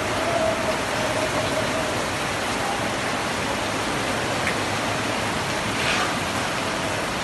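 Heavy rain falling steadily, a dense and even hiss of the downpour on the wet paving.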